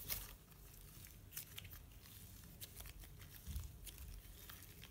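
Light blue slime being squeezed and stretched by hand, giving faint, irregular small clicks and sticky crackles.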